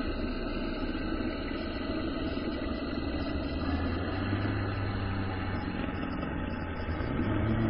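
A steady low droning soundscape with sustained deep tones, like a dark ambient soundtrack; a few of its tones shift a little over halfway through.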